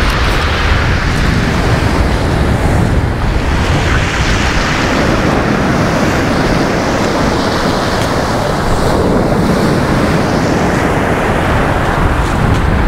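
Storm surf on the Black Sea, breaking and washing up over a pebble beach in a steady, unbroken rush. Wind buffets the microphone throughout.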